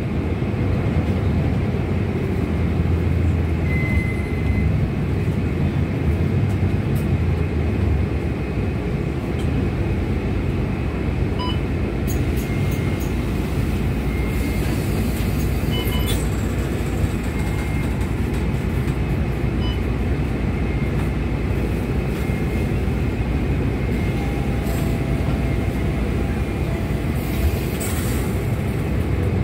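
Steady low rumble of a vehicle's engine and road noise, heard from a vehicle on the road.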